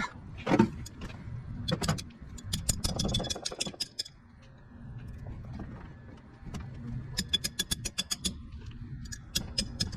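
Hand tools working on the bolts of a Copeland semi-hermetic compressor: quick runs of metallic clicks, about two and a half seconds in and again about seven seconds in, with a few single knocks between, over a low steady rumble.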